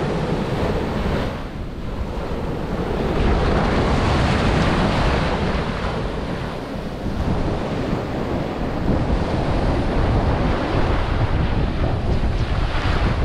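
Ocean surf breaking and washing up the beach, with wind buffeting the microphone in a heavy low rumble.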